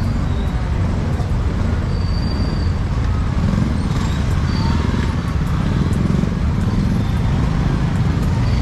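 Busy street ambience: a steady rumble of road traffic with faint voices mixed in, and a few brief faint high tones.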